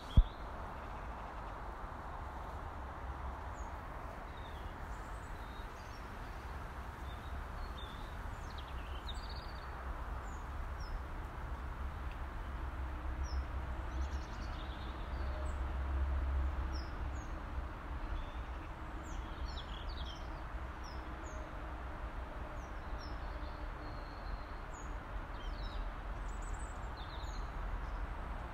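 Robin calling: faint, short, high thin notes scattered irregularly, over a steady low rumble and hiss of background noise. A brief sharp click comes at the very start.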